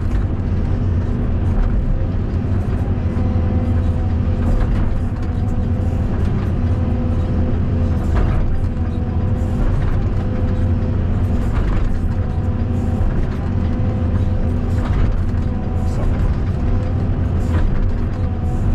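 Caterpillar 320 D2 hydraulic excavator's diesel engine running steadily under working load, with a steady hydraulic whine and a few scattered knocks as the machine digs.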